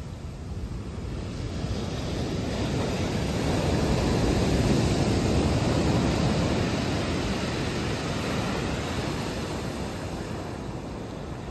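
Ocean surf: a wave swells over a few seconds, peaks mid-way and slowly washes back out.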